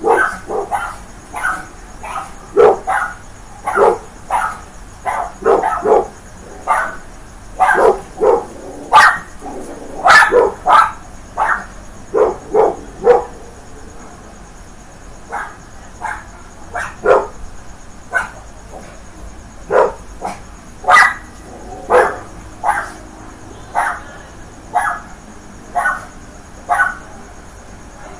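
Dog barking over and over: short, sharp barks in irregular runs of a few at a time, with brief pauses between runs.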